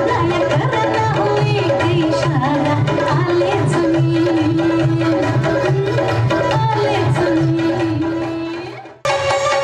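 Lavani-style Indian folk music: a bending melody line over a fast hand-drum rhythm. It fades out a little before the end, then different music starts abruptly.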